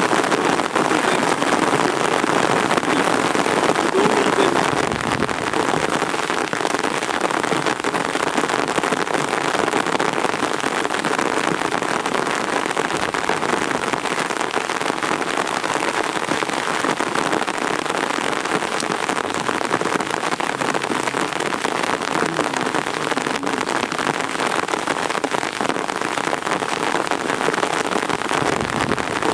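Heavy rain falling steadily, a dense even patter with no let-up.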